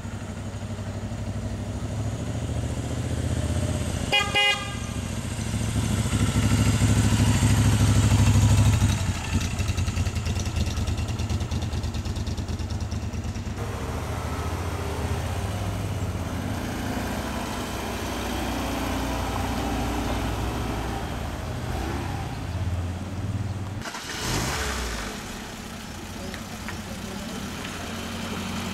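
Cars driving slowly past one after another, engine sound swelling loudest as one passes a few seconds in, with a short horn toot about four seconds in.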